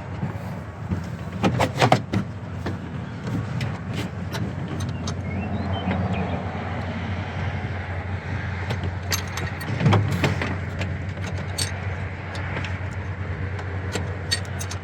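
Scattered metallic clicks and clinks of a wrench tightening the bolts on a new starter, in small clusters a couple of seconds in and again about ten seconds in, over a steady low hum.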